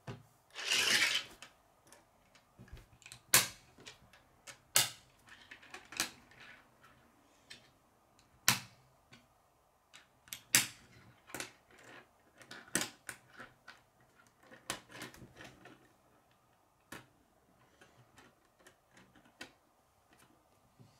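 Plastic K'nex pieces clicking as they are snapped together and handled on a wooden table: irregular sharp clicks, with a short rustle of pieces being picked up about a second in.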